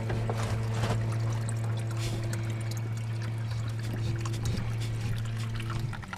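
Water pouring and trickling out of the water heater's disconnected hose fittings, over a steady low hum that stops near the end.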